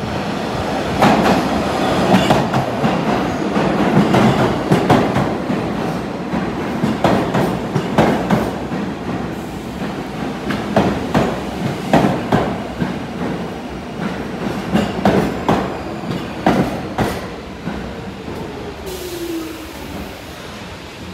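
R46 subway train pulling into the station over the rails, its wheels knocking in an irregular run of clacks over the rail joints. The noise eases as it slows, with a short falling whine near the end.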